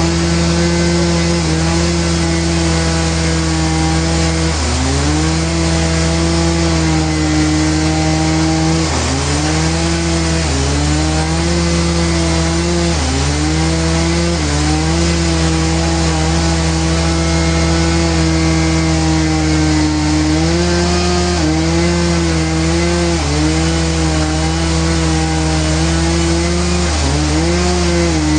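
Sawmill saw running through a Trembesi log. The motor's pitch dips briefly and recovers every few seconds as the blade loads up in the wood.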